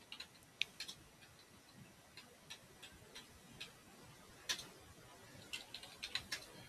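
Faint, irregular keystrokes on a computer keyboard as shell commands are typed, a few clicks sharper than the rest.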